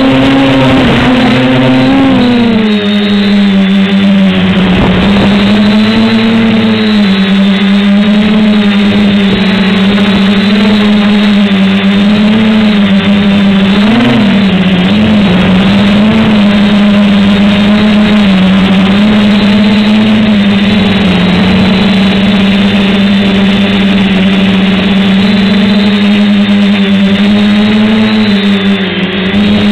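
Hobbyking SK450 quadcopter's four NTM 28-26 1000 kV brushless motors and propellers whining loudly, heard close up from the onboard camera. A steady hum whose pitch shifts with the throttle, dropping a little early on and wavering briefly about halfway through.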